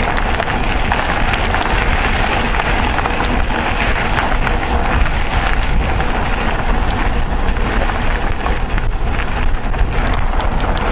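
Mountain bike rolling along a gravel track: steady wind rumble on the microphone and tyre noise, with many small clicks and rattles from stones and the bike.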